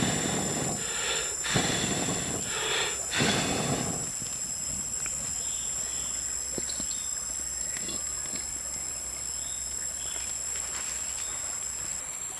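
Steady high-pitched insect drone, with scattered faint crackles from a small wood fire under a wok. A few louder bursts of handling noise come in the first four seconds.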